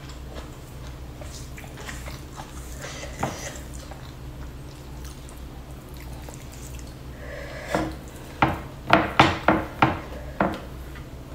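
Close-miked eating sounds: soft scattered clicks and taps of fingers working sambal and stink beans in a stone mortar, then in the last few seconds a quick run of about six sharp, wet clicks of chewing.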